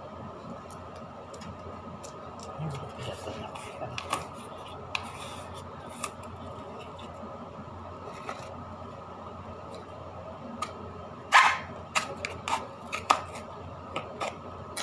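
Short plastic clicks and rattles from handling a cheese shaker with a green flip-top cap, scattered at first, then a burst of louder sharp clicks about eleven to thirteen seconds in. A steady hum runs underneath.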